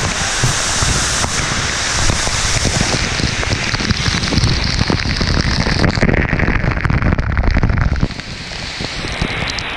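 Waterfall pouring down directly onto the camera and the person under it, a loud, dense rush of pelting water. The level drops noticeably about eight seconds in.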